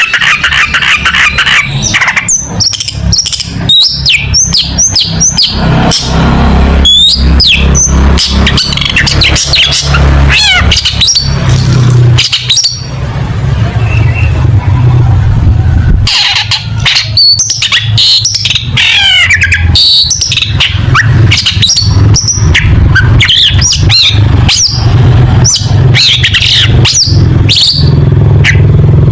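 Long-tailed shrike (cendet) singing a fast, loud, varied song of sharp chirps, clicks, trills and whistled glides, with a short lull about halfway through. A steady low hum runs underneath.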